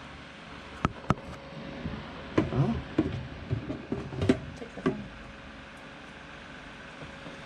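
Handling noises from a glass tarantula enclosure: two sharp clicks about a second in, then a couple of seconds of clicking and rattling as metal feeding tongs are taken out and the mesh screen lid is closed. A fan hums steadily underneath.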